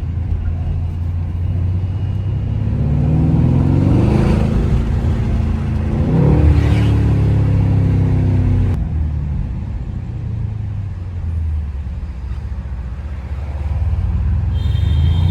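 Mercedes-AMG C63 S engine and exhaust under hard acceleration. The revs climb twice, about three seconds in and again about six seconds in, hold, then drop off as the throttle closes about nine seconds in, leaving a low rumble while cruising.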